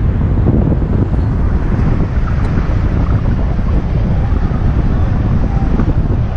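Wind buffeting the microphone of a bicycle-mounted action camera while riding at speed, a loud steady low rumble.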